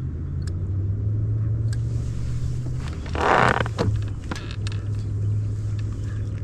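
A steady low motor hum whose pitch shifts slightly, with a brief louder burst of noise about three seconds in.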